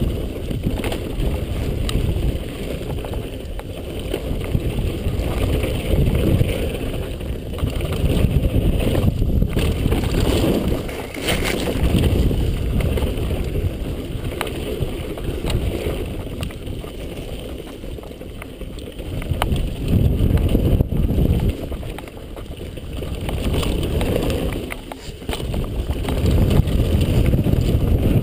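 Mountain bike descending a dry dirt trail at speed: wind buffeting the helmet-mounted camera's microphone and tyres rumbling over dirt, swelling and easing with the terrain, with scattered short knocks and clicks from the bike.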